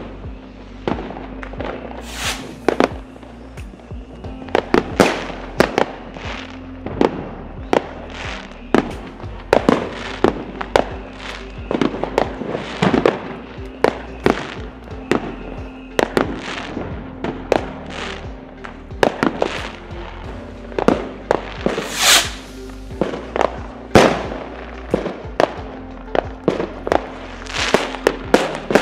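Fireworks going off in quick, irregular succession: sharp bangs of aerial shells and firecrackers. Background music plays underneath.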